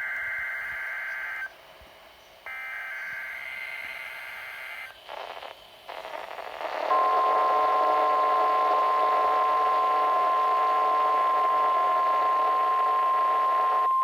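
NOAA Weather Radio test alert heard through a weather radio receiver. It starts with the end of one burst of buzzy SAME digital header tones, then after a short gap a second burst. About seven seconds in, the steady 1050 Hz warning alarm tone comes on and holds over radio hiss.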